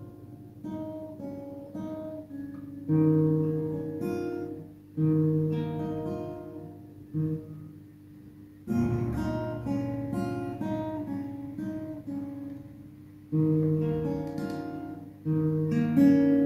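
Steel-string acoustic guitar with a capo, played fingerstyle: chords picked out as arpeggios, string by string, each new chord starting with a louder bass note every couple of seconds and left to ring.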